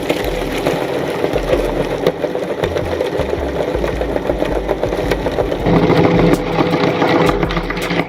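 Electric meat grinder running while grinding oysters, a motor hum under dense crackling. About six seconds in, the hum becomes steadier and slightly louder.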